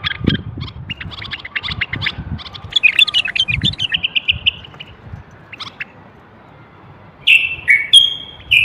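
A common bulbul singing. A run of quick chattering notes gives way to a short trill about four seconds in, then a pause, then loud whistled phrases near the end.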